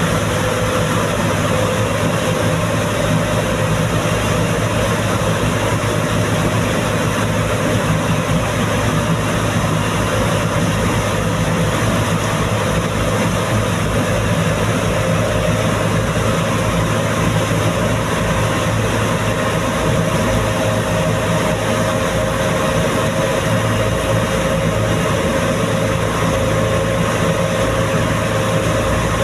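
JCB backhoe loader's diesel engine running steadily as the machine drives through floodwater, heard from the cab, with the steady rush and splash of water pushed aside by the front bucket.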